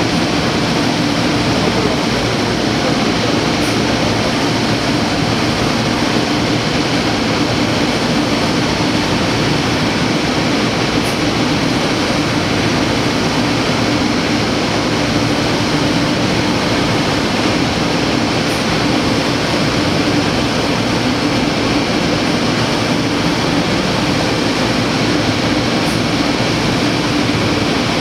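Thermwood five-axis CNC router spindle running and cutting a wooden pattern: a loud, steady whir with an even hum that does not change in pitch.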